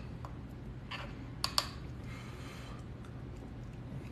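A spoon clicking lightly against a bowl of soup as it is stirred: a few sharp little clicks, two close together about a second and a half in.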